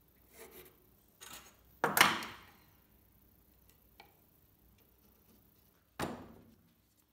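Tools being handled on a wooden workbench: light scrapes from pencil marking and a combination square, a sharp knock about two seconds in, a small tick about four seconds in, and another knock about six seconds in as the Festool Domino XL joiner is set against the board. The joiner's motor is not running.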